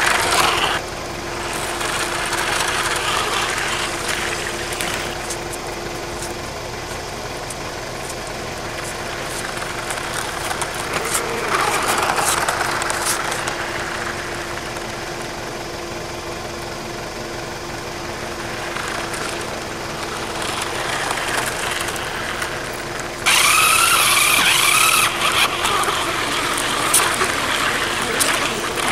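Small electric motor and plastic gearbox of a battery-powered toy RC jeep whining steadily as it drives, with its tyres rolling over rough concrete. It gets louder for a few seconds about three-quarters of the way through, with a wavering whine.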